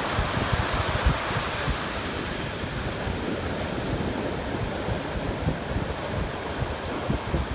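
Ocean surf washing steadily onto a beach, with wind gusting across the microphone in low, irregular rumbles.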